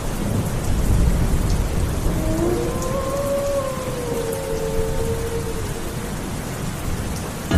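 Rain sound effect: a steady hiss of rain with a low rumble of thunder under it. Between about two and five seconds in, a faint wavering tone drifts up and down over the rain.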